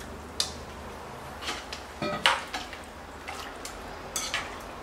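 Chopsticks stirring chicken wings in a pot of hot water, clinking and knocking irregularly against the metal pot and a stainless steel bowl. The loudest clink, about two seconds in, rings briefly.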